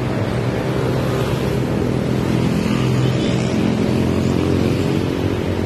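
Steady drone of heavy motorcycle traffic, many engines running at once.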